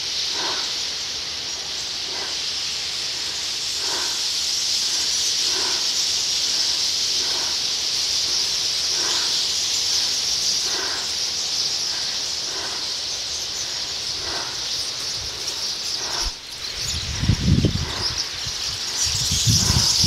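A huge flock of small birds in flight overhead: their massed calls and wings blend into a steady high hiss. A faint short note repeats about every second and a half, and low rumbling bumps come near the end.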